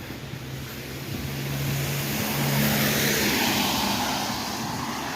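A car passing, its tyre and engine noise rising to a peak about two and a half seconds in, then slowly fading.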